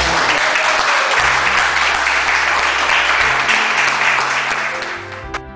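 A small group applauding: dense hand clapping that fades out near the end, with soft background music underneath.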